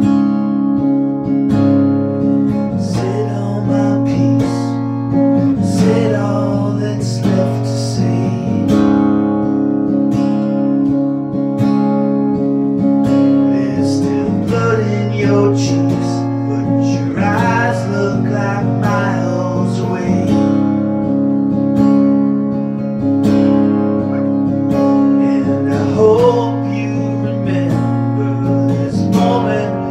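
Acoustic guitar strummed in sustained chords, with a man singing over it in phrases.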